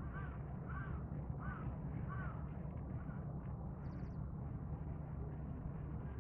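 A bird gives four short, arched calls, about one every 0.7 seconds, which stop a little over two seconds in. A steady low outdoor rumble runs underneath, and a brief faint high chirp comes near the four-second mark.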